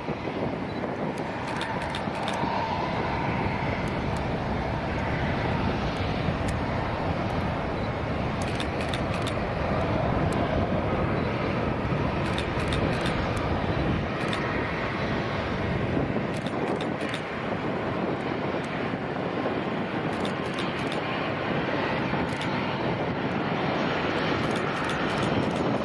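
Airplane engine noise: a steady, continuous rumble with no breaks, over which scattered short clicks can be heard.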